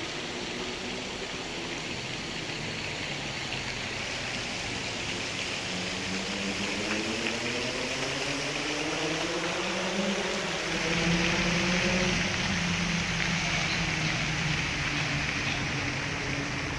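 Busy city road traffic: a steady rush of road noise, with one vehicle's engine rising in pitch from about six to ten seconds in and then holding steady as it pulls along the road.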